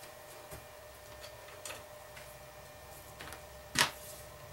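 Wooden dowels being handled: a few light clicks and one sharper knock a little before the end, over a faint steady hum.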